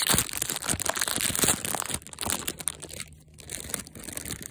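Clear plastic packaging crinkling and crackling as it is handled and pulled open around a stress ball, with a brief lull about three seconds in.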